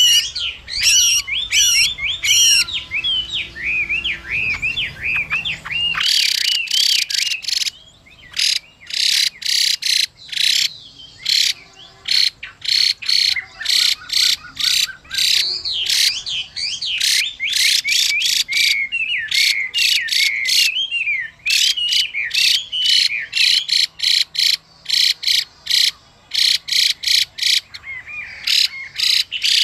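Chinese hwamei calling: fluid whistled song phrases at first. From about six seconds in, loud harsh rasping notes in quick runs dominate, interleaved with short whistled phrases. These are a female hwamei's 'xùy' calls mixed with male song, used to excite other male hwameis.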